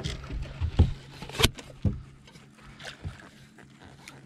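Landing net being grabbed from a bass boat's deck and swung out over the water: a few sharp knocks and clatter from the net's handle in the first two seconds, then quieter handling.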